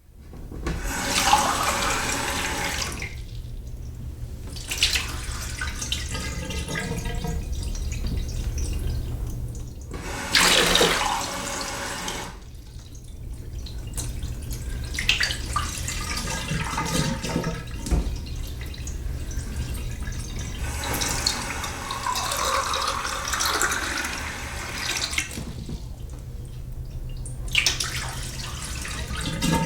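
A kitchen tap running into a glass at a sink, the stream switched on and off several times, with brief louder gushes and quieter gaps between fills.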